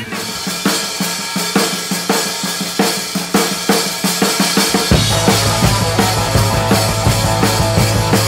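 Background rock music: a drum kit playing a steady beat, with a low bass line coming in about five seconds in.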